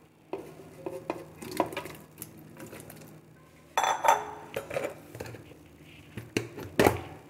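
Cut mango pieces tipped from a ceramic bowl into a plastic blender jar, knocking and clattering against the jar. A ringing clink about four seconds in, with more sharp knocks near the end.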